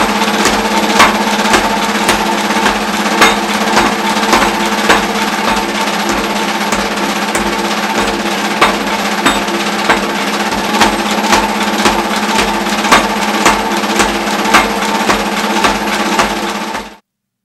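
Power hammer forging a red-hot steel hammer-head blank: repeated heavy metal-on-metal blows of the dies over the machine's steady running hum, cutting off abruptly near the end.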